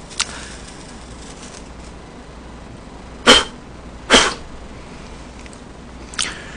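A man sneezes twice, about a second apart, a little past the middle.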